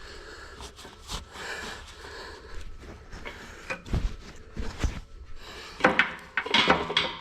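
Metal roller-chain links clinking and knocking against the machine as a new chain is threaded and handled, with a run of louder ringing clinks about six seconds in.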